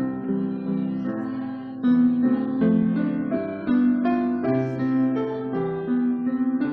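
Piano playing a gentle hymn tune for the congregation's peace song: a melody moving note by note over lower held chords.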